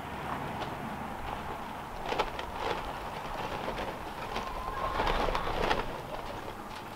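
Tarp-covered wooden quail tractor being pulled on its wheels across dry ground: uneven knocking and rattling from the frame, loudest around five seconds in.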